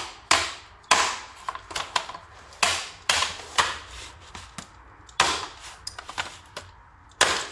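Irregular sharp clacks and snaps, several of them loud, from a hand tool working on a factory car door speaker as its wires are unhooked.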